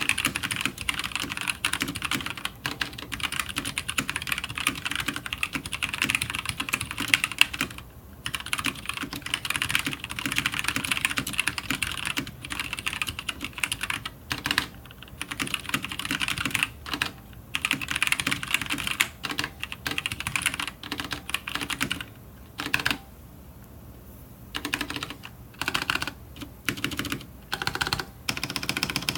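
Fast typing, about 100 words a minute, on a Teamwolf Zhuque mechanical keyboard with linear Gateron Yellow switches and PBT keycaps: a dense, rapid clatter of keystrokes. It breaks off in short pauses and thins to scattered strokes near the end.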